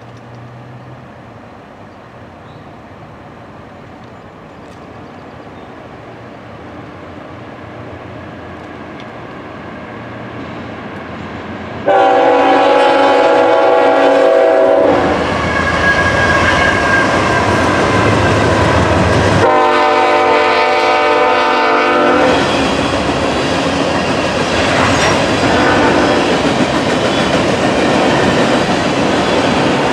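A Norfolk Southern freight train led by a GE ET44AC diesel locomotive approaches with a rumble that grows steadily louder, then the horn sounds two long blasts of about three seconds each as the locomotives pass. The freight cars then roll by with steady loud rolling noise and wheel clatter.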